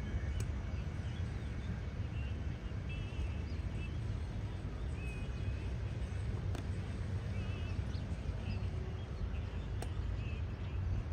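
Steady low outdoor rumble with short, high bird chirps several times and a few faint clicks.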